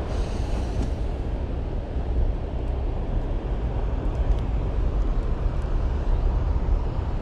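A steady low rumble, with a few faint light clicks as a spinning rod and reel are handled.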